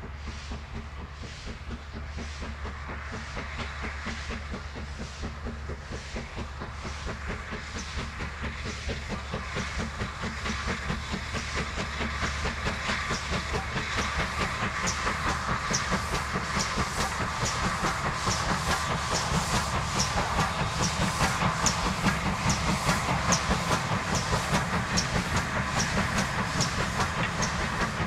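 Steam locomotive working hard as it approaches. Its regular exhaust beats grow steadily louder, with steam hiss and wheels clattering on the rails.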